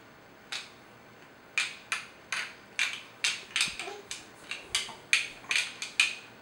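Plastic baby toys knocked together in an irregular run of sharp clacks, about three a second, starting about half a second in.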